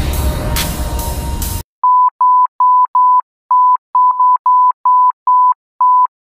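Countdown beep sound effect: a run of short, identical high beeps of one pitch, about three a second and unevenly spaced. Before it, a loud noisy rush with crackles cuts off suddenly.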